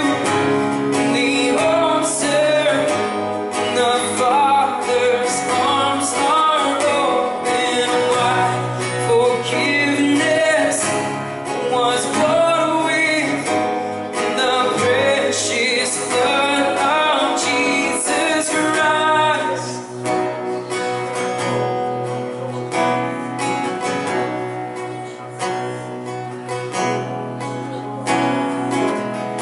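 Live worship music: a strummed acoustic guitar under singing voices. About two-thirds of the way through the singing stops and the guitar carries on alone.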